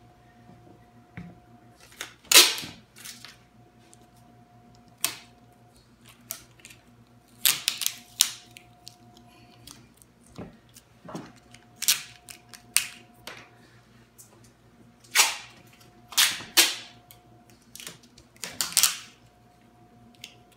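Clear packing tape being pulled and stretched off its roll in short, loud rips, about a dozen of them, a second or a few seconds apart.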